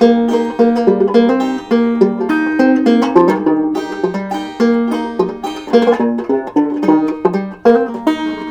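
Plucked string instrument playing an instrumental closing passage: a run of picked notes, several a second, each struck sharply and dying away.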